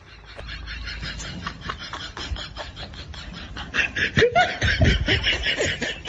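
Laughter: a run of quick, short bursts that grows louder about four seconds in.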